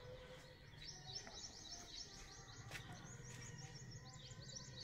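A bird chirping faintly: rapid runs of short, high notes that begin about a second in and keep repeating.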